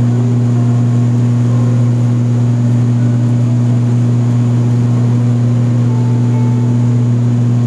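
Cabin noise of an ATR 72-600 turboprop climbing after takeoff: a steady, loud propeller drone, a low hum with one strong overtone, heard inside the cabin from a window seat beside the propeller.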